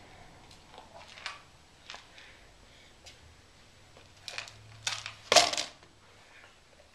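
Small objects being handled: scattered clicks, taps and rustles, with the loudest clatter about five and a half seconds in.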